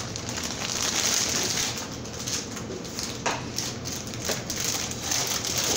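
Plastic bag of dry cornbread stuffing being crinkled and crushed by hand, the crumbs rustling inside, with a couple of sharp clicks partway through.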